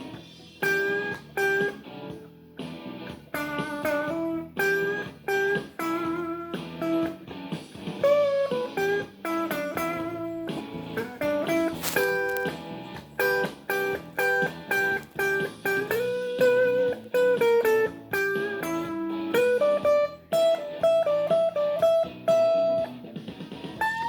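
Guitar playing a blues lead line: single picked notes in quick phrases, with a few bent notes.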